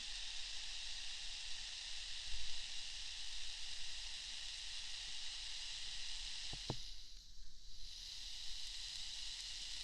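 Steady rain ambience, an even hiss that dips briefly about seven seconds in, with a couple of sharp clicks just before the dip.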